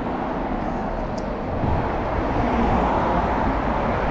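Street traffic noise from cars on the road beside the sidewalk, a steady rushing hum that swells a little about halfway through as a car draws near.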